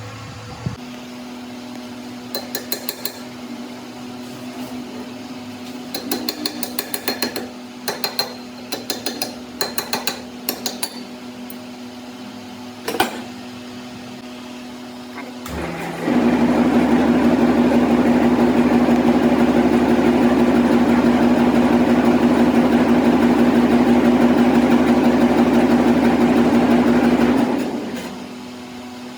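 Workshop machinery hums steadily while metal is tapped in a scattered run of light knocks, with one sharper knock. About halfway through, a louder machine starts and runs steadily for about eleven seconds, then stops.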